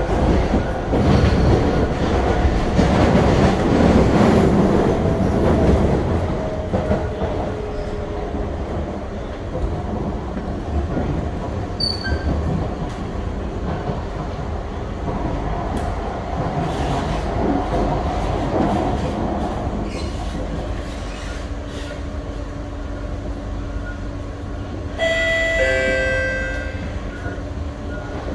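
SMRT C151B metro train heard from inside the car, running with wheel and rail rumble that is loudest early and then eases as the train slows, a faint motor tone falling in pitch. Near the end a short chime of stepped, falling notes sounds.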